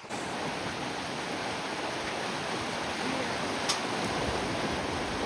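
Swift river water rushing steadily, with one brief sharp click about three and a half seconds in.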